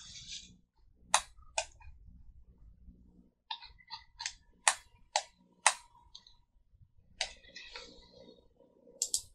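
Computer mouse clicking: about ten short, sharp clicks at uneven intervals as the 3D model view is orbited and zoomed.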